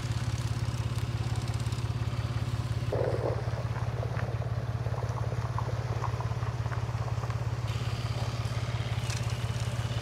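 Engine running steadily at a constant speed, a low even note with a fast regular pulse. Faint clinks and a brief sound about three seconds in sit over it.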